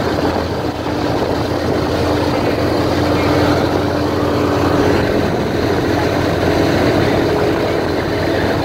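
Airboat engine driving its large caged air propeller at speed, a loud steady drone.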